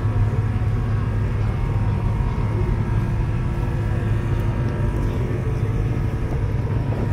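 A vehicle engine's low, steady rumble as a lowered pickup truck rolls slowly past.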